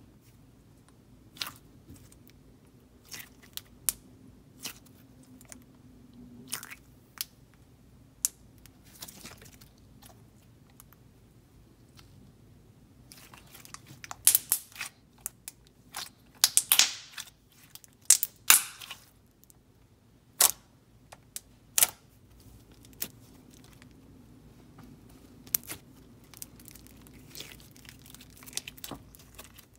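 Thick Elmer's glue slime being pressed, folded and stretched by hand, giving scattered sharp bubble pops and clicks. A denser, louder run of popping and squishing comes about halfway through.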